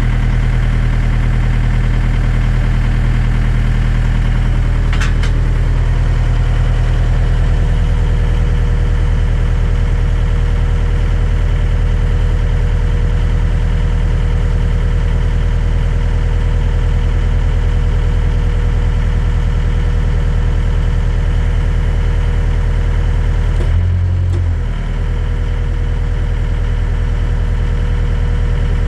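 Excavator's diesel engine idling steadily. Its low note changes briefly about three-quarters of the way through.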